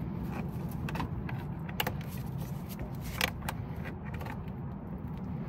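Hand tools working on an engine bay: a few sharp clicks and light knocks, the clearest about two seconds and three seconds in, over a steady low hum.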